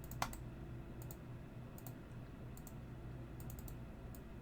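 Computer mouse clicking: about a dozen short, sharp clicks at irregular spacing, some in quick pairs, with one louder click a quarter-second in. A faint steady hum sits underneath.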